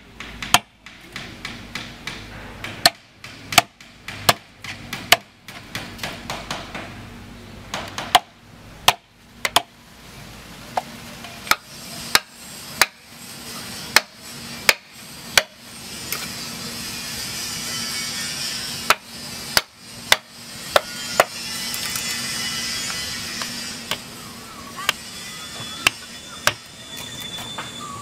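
Mallet striking a chisel into wood: a run of sharp, irregular knocks, one to three a second, as the carver cuts into the log.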